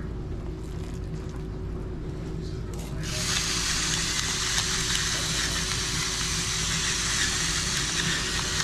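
Battery-powered electric salt-and-pepper grinder grinding seasoning: a steady gritty whir that starts about three seconds in and keeps going.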